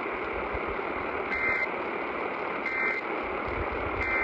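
Emergency Alert System end-of-message data bursts, received over weather radio with steady static hiss behind them. There are three short two-tone digital screeches about a second and a third apart, the last at the very end. They mark the close of the alert.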